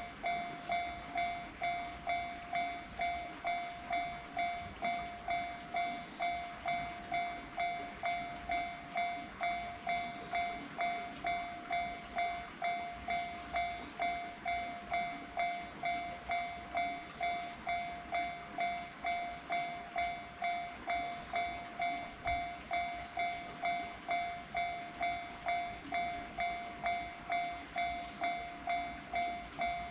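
Japanese railway level-crossing warning bell ringing: an electronic ding repeating evenly, about three strikes every two seconds.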